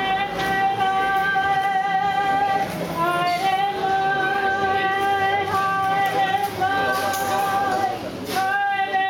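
A woman's high ceremonial welcoming call (karanga), sung in long, steady held notes, with breaks for breath about three seconds and eight seconds in.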